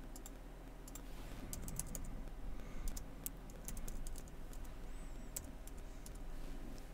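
Typing on a computer keyboard: irregular, light key clicks as a short shell command is typed.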